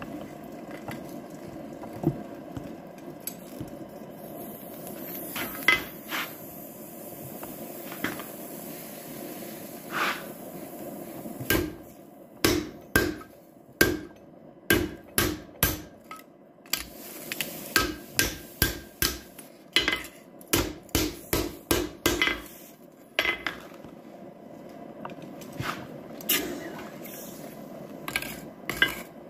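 Blacksmith's hammer striking steel on an anvil while forging a coal rake head: a few separate blows, then a steady run of strikes two to three a second from about a third of the way in until about three quarters through, then scattered blows again.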